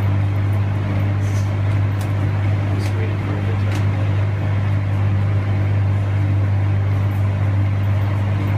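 A loud, steady low hum that does not change, with a few faint short clicks in the first four seconds.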